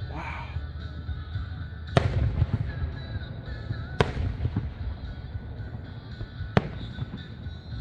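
Fireworks display: three sharp aerial shell bursts, about two seconds apart, over a continuous low rumble of the show.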